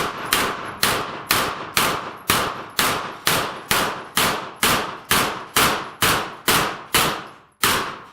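A steady string of about sixteen gunshots, roughly two a second, as a shooter engages steel plate and popper targets one after another; the last shot comes after a slightly longer pause near the end, and the sound then cuts off.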